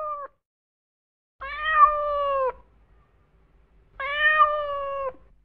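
Kitten meowing: two long, level meows of about a second each, a couple of seconds apart, after the tail of an earlier one at the very start.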